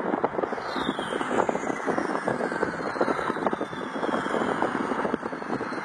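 A plastic drinking straw in a fountain-drink cup held out of a moving car's window, fluttering and buzzing rapidly in the rushing air, with a faint high whistle sliding downward about half a second in.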